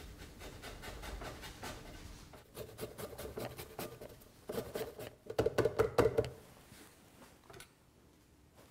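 Lemon being zested on a metal rasp grater: a run of quick scraping strokes that grow louder about halfway through and stop a couple of seconds before the end.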